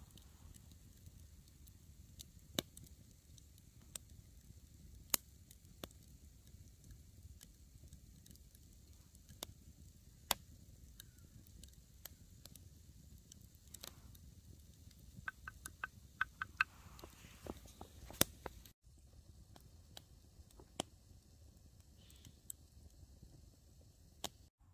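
A wooden spoon stirring coffee in a carved wooden kuksa cup, knocking now and then against the cup's wooden sides in sharp single clicks, with a quick run of about half a dozen taps about two-thirds through.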